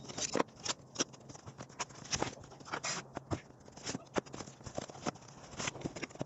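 Cardboard box and packing being handled during unboxing: irregular knocks, taps and rustles, several a second.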